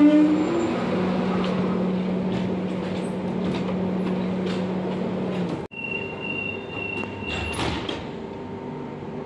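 Madrid Metro S7000 train standing at the platform with its doors open, humming steadily in a low tone. After a cut about halfway through, a high steady door-closing warning tone sounds for about a second and a half, followed by a few clunks as the doors shut.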